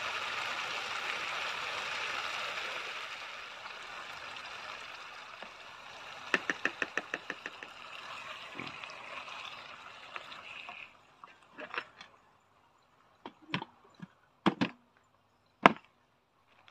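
Portable butane cartridge stove's burner hissing under a frying pan of curry, with a quick run of about eight taps against the pan partway through. The hiss cuts off suddenly about two-thirds of the way in as the burner is shut off, followed by several sharp knocks of the pan and spoon being handled.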